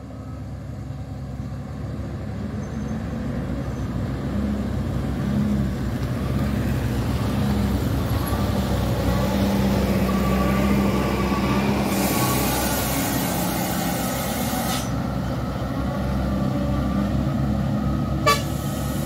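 Heavy loaded trucks' diesel engines labouring up a steep dirt hill, growing louder as they approach. About twelve seconds in there is a hiss lasting about three seconds, and a brief horn toot sounds near the end.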